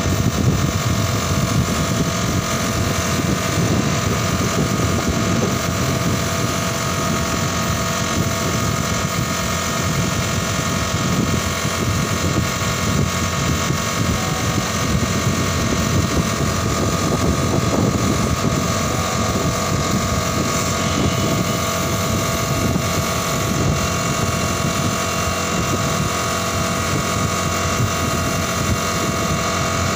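Gravity-feed paint spray gun spraying paint, a steady hiss of compressed air, with an air compressor running steadily underneath.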